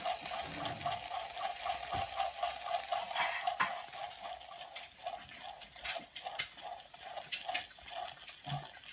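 Circa-1895 Bing toy live-steam engine running: steam hissing and sputtering, with a fast, even pulsing beat and small scattered clicks. The beat is weaker in the second half.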